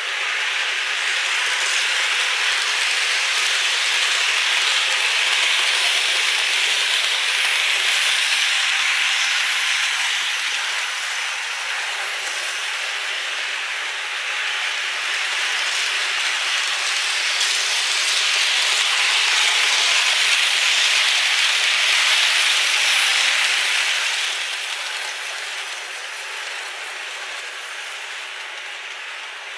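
Märklin model train running on its track, a steady rolling hiss that swells twice and fades near the end.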